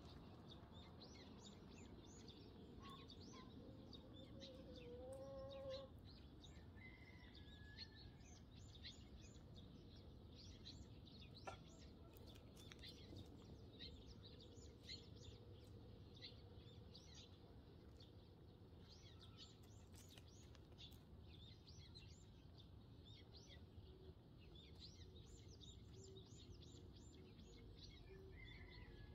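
Eurasian tree sparrows chirping continuously in quick short notes over a low outdoor hum, with a chicken giving a short low call about five seconds in and one sharp click near the middle.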